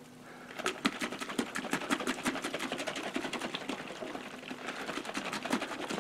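Water sloshing and splashing as a metal can is swirled and dunked in a plastic tub of water, rinsing the leftover trap dye out of the can. It comes as a quick, irregular run of short splashy clicks, several a second.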